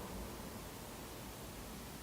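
Low steady hiss with no distinct event: room tone.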